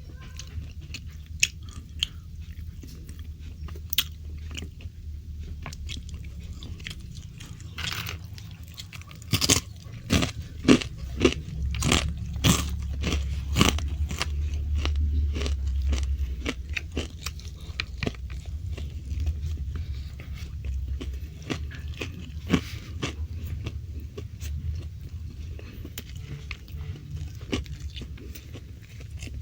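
Close-up eating sounds: a person biting and chewing crunchy fried food, with sharp crunches that come thickest about ten seconds in, over a low steady chewing rumble.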